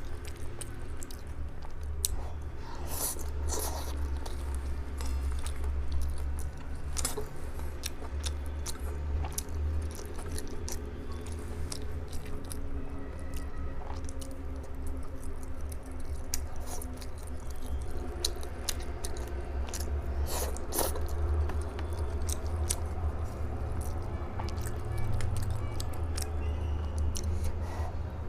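Close-miked chewing and biting of kaolengmian (grilled cold noodles): wet mouth sounds with many short sharp clicks and bites, over a steady low hum.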